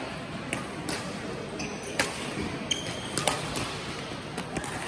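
Badminton rally: rackets striking the shuttlecock with several sharp cracks, the loudest about two and three seconds in, along with short squeaks of shoes on the court floor. A low murmur of voices runs underneath.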